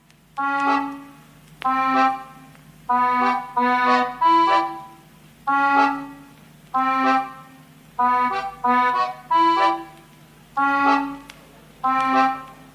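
Background music: a melody of short, reedy held notes with brief gaps between them, over a steady low drone.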